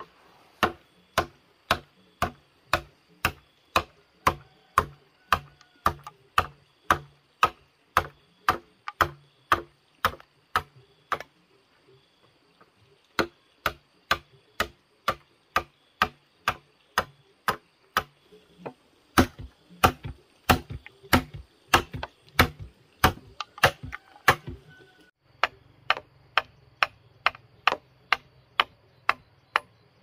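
A hand tool chopping in a steady rhythm: sharp strikes about two a second, pausing for a couple of seconds about eleven seconds in, then going on.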